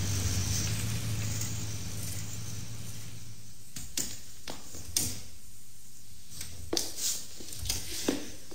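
Radio-drama scene-change effects: a steady low hum with hiss fades away over the first few seconds, then a handful of short, sharp clicks and knocks sound irregularly.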